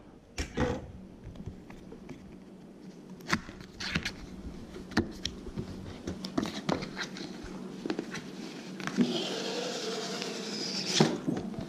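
Handling of a cardboard product box: scattered taps and knocks as the lid and flaps are opened, then a scraping rustle about nine seconds in as the inner box slides out of its cardboard sleeve, ending in a sharp knock.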